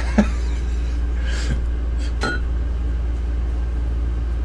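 A steady low hum during a pause in speech, with a faint click near the start, a soft airy sound about a second and a half in and a sharper click a little after two seconds.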